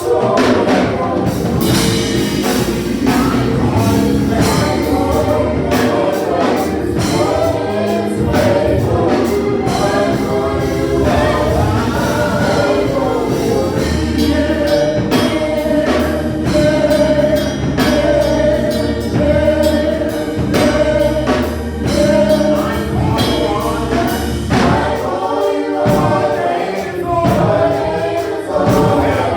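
Gospel choir singing with band accompaniment: bass and a steady beat under the voices.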